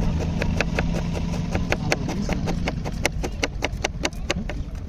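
Kitchen knife slicing an onion on a plastic cutting board: a quick run of sharp taps, about five or six a second, coming faster in the second half. A low steady hum sits underneath.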